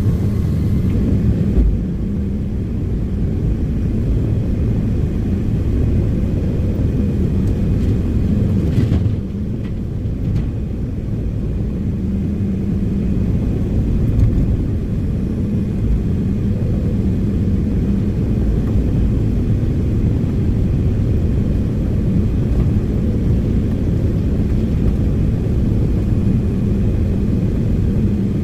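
Heavy diesel earthmoving machinery running steadily, a continuous low engine rumble with slight dips in level about 2 and 9 seconds in.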